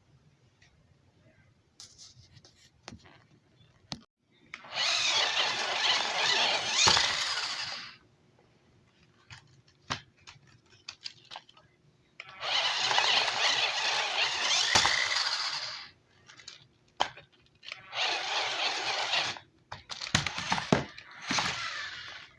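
Toy RC car running in four bursts of rushing noise, each lasting from under two to about three and a half seconds, with small clicks in between.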